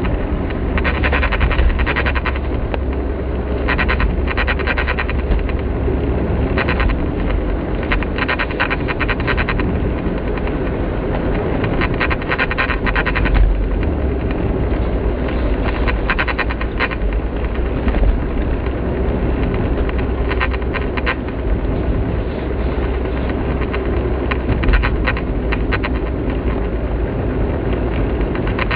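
Instrument cluster of an early DW3W Mazda Demio making an abnormal noise while driving: bursts of rapid ticking or chattering, each a second or two long, recurring every few seconds over the steady low hum of the car underway. The noise comes from the gauge cluster only above about 20 km/h; the owner can't tell whether cold weather or a worn part is the cause.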